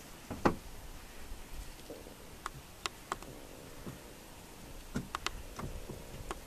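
African elephant browsing in a thicket: scattered sharp snaps of twigs and branches breaking, the loudest about half a second in, with a few more in small clusters later.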